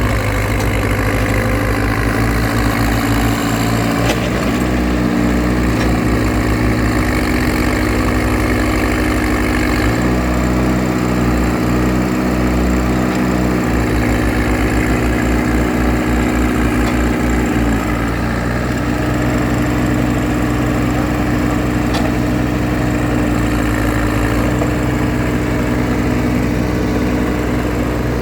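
Diesel engine of a Case Super L backhoe loader running steadily, its note shifting slightly a few times.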